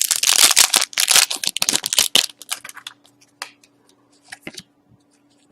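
A foil trading-card pack being torn open, its wrapper crackling and crinkling loudly for about two seconds, followed by scattered soft clicks and rustles as the cards are handled.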